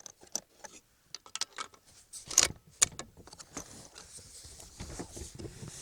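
Clicks, small knocks and rattles of gear being handled, with a louder clattering cluster about two and a half seconds in, then a soft rustling.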